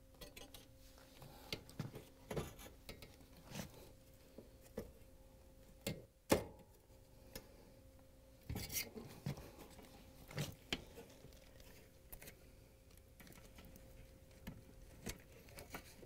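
Scattered small plastic clicks and knocks as wire-harness connectors are unlocked and pulled off a dishwasher's electronic control board by gloved hands, the sharpest click about six seconds in. A faint steady hum runs underneath.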